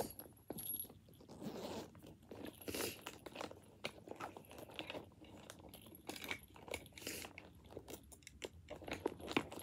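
Hands rummaging through and shifting items inside a leather handbag: irregular rustles, soft clicks and scrapes.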